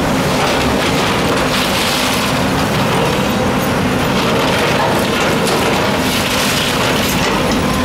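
Tracked excavator's diesel engine running under load as its bucket breaks into a brick wall and tiled roof, with steady rattling and clatter of falling bricks, tiles and debris.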